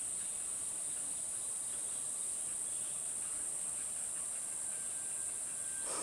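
Insects trilling in one steady, high-pitched, unbroken drone.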